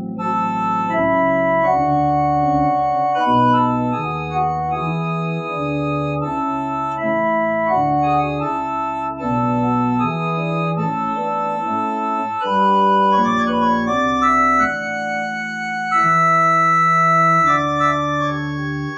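Organ music: sustained chords with a moving melody line, the held notes changing every second or so.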